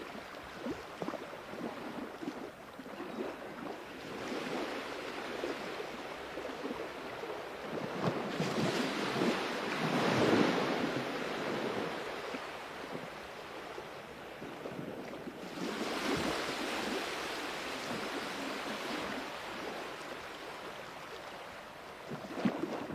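Sea waves washing onto a shore in a continuous hiss. The surf swells to a peak about ten seconds in, with a smaller surge around sixteen seconds, then ebbs.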